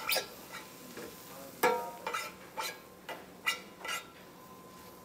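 Metal tongs clinking and scraping against a pan while stirring leeks and flour: several sharp clinks at uneven intervals.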